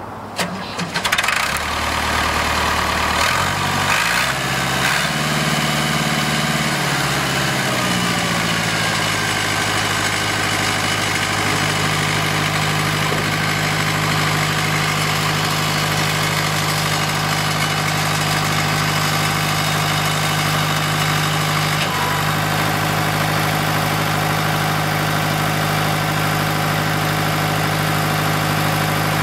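Ford 5610 tractor's four-cylinder diesel engine running. Its speed steps up and down through the first eight seconds or so, then holds steady.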